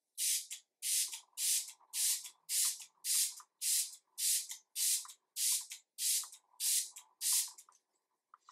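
Fine-mist pump spray bottle of Smashbox Photo Finish Primer Water being sprayed at the face in a rapid series of about fourteen short hissing pumps, nearly two a second, each with a faint click of the pump.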